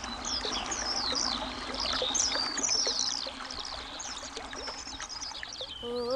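Running water, like a stream, with birds chirping over it in many quick, high, falling chirps.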